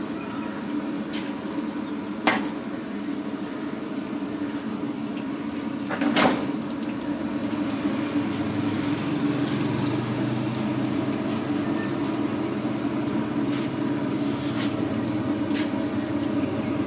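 Pakoras sizzling in a large kadhai of hot oil over a steady hum. A metal spoon clinks against the wok twice, about two and six seconds in, the second clink louder, and a lower hum joins about halfway through.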